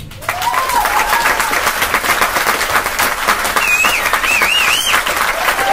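Audience applauding and cheering, dense clapping with whoops, and a warbling whistle in the second half.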